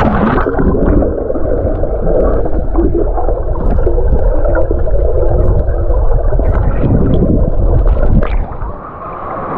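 Water heard underwater: a loud, muffled rumble and gurgle of moving water, with scattered clicks and knocks. The muffling lifts near the end.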